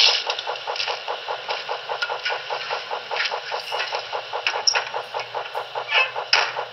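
Onboard sound system of a Broadway Limited Paragon3 HO-scale PRR GG1 model locomotive playing its standing electric-locomotive sounds: a steady mechanical pulsing of about six beats a second, with a few sharp clicks.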